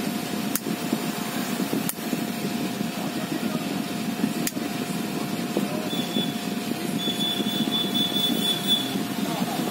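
Steady low rumble of a running engine, with a faint steady hum; a thin high tone sounds for a few seconds in the second half.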